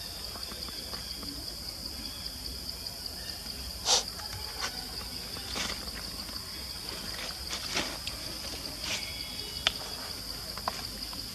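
Steady high-pitched drone of insects chirring, with a few scattered short clicks and knocks; the loudest knock comes about four seconds in.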